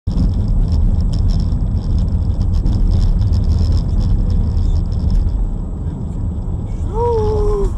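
A vehicle driving, heard as a steady low engine and road rumble, starting abruptly. Near the end comes a short pitched sound that falls slightly.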